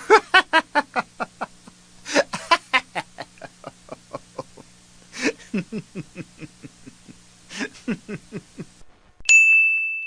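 Meme sound effect of a person laughing in fast repeated bursts, about five a second, in several runs over a low hum. Near the end comes a short, high, steady beep.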